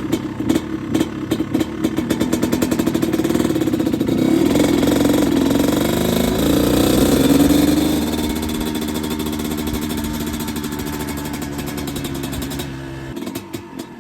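2005 Kawasaki KX250 two-stroke dirt bike engine running as it is ridden, revving up and down in the middle, then settling to a steadier, lower note and dropping quieter shortly before the end.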